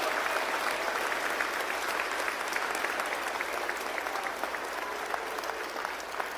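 A large audience applauding, with dense clapping that slowly dies down.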